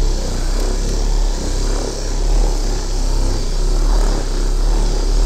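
Handheld electric buffing machine with a polishing mop running steadily with a low hum, its mop worked over a mineral-based plaster wall finish to buff it up.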